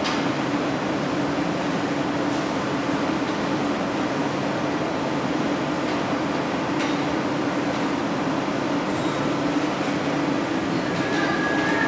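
Steady rushing noise of a glassblowing hot shop's gas-fired glory holes and furnaces, mixed with fans and exhaust hoods, with a constant low hum. A few faint taps of tools are heard.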